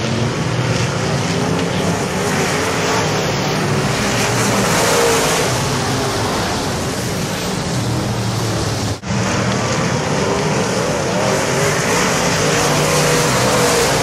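A pack of dirt-track modified race cars' V8 engines running hard around the oval, engine pitch rising and falling as the cars pass. The sound drops out for an instant about nine seconds in.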